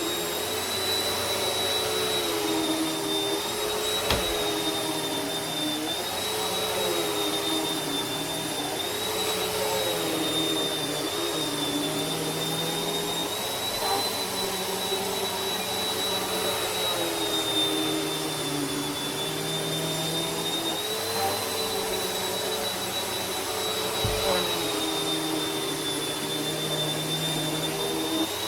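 Vacuum cleaner running steadily, its motor giving a constant whine with a high tone that wavers slightly. Two brief ticks come through, about four seconds in and near the end.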